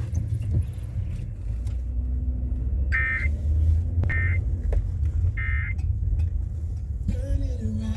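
Emergency Alert System end-of-message code on a NOAA Weather Radio broadcast: three short, identical buzzy data bursts, each about a third of a second long and a second or so apart, over a low steady rumble.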